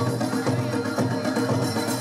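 Kagura festival music: taiko drums and small hand cymbals beating a quick, steady rhythm, with a bamboo flute over them.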